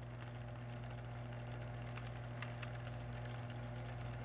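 Electric typewriter's motor running idle with a steady low hum, no keys being struck.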